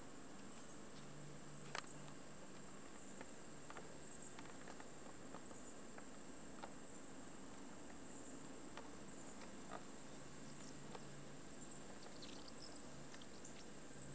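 Faint steady high-pitched trilling of insects, crickets or katydids, with a few soft clicks scattered through it.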